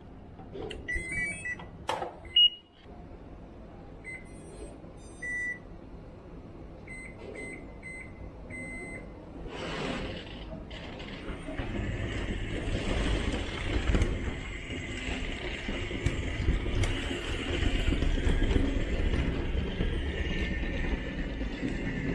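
A few short electronic beeps, then from about ten seconds in the LESU C374F RC hydraulic excavator starts running with a steady mechanical drone that gets louder.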